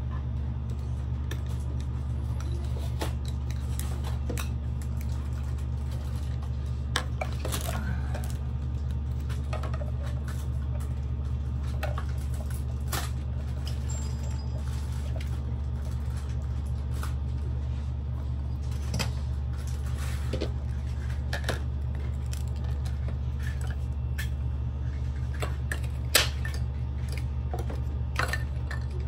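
Small toy kitchen pieces clicking and clattering now and then as they are handled, with one sharper clack near the end, over a steady low hum.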